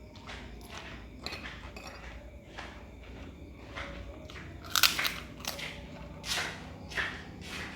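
Close-miked mukbang eating of fried rice: a run of irregular biting and chewing sounds, the loudest about five seconds in.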